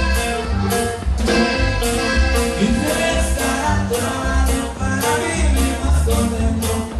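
Live norteño band playing a dance tune: accordion melody over bass and drums with a steady beat.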